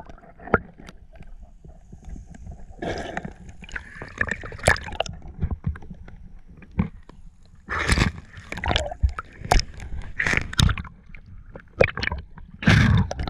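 Water sloshing and gurgling around a kayak, with irregular sharp splashes and knocks throughout.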